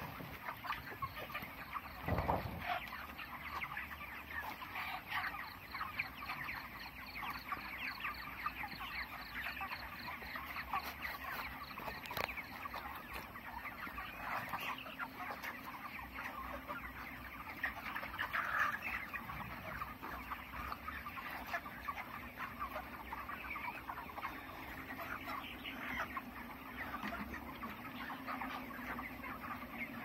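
A large flock of month-old broiler chickens clucking together in a dense, steady chatter of many overlapping calls. A single low thump comes about two seconds in.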